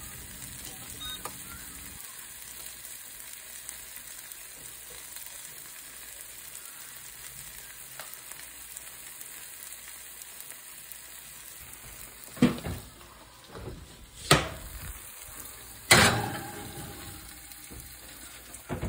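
Omelet sizzling in a stainless frying pan, a steady hiss. From about twelve seconds in come three loud metal clanks a couple of seconds apart, from the pan and oven as the pan goes onto the oven rack. The last clank rings briefly.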